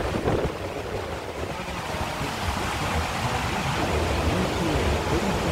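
Storm wind blowing across the phone's microphone: a steady rushing noise with gusty low buffeting.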